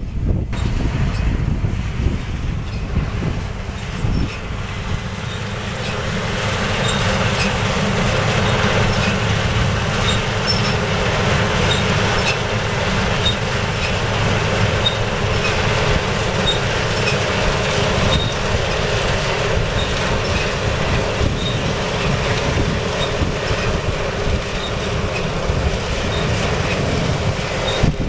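Case IH 8010 combine harvester cutting barley, its engine and threshing machinery running steadily. The sound grows louder from about six seconds in as the combine comes close.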